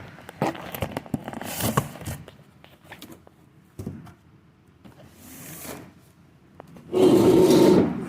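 Cardboard box and packaging being handled and pulled open, with short rustles and scrapes, then a loud scraping rush lasting about a second near the end.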